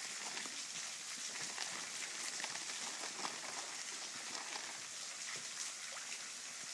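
Steady hiss of a small waterfall splashing into a pool.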